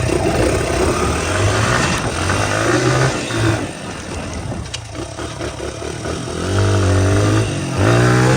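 Small motorbike engine revving up and down several times, loudest near the end.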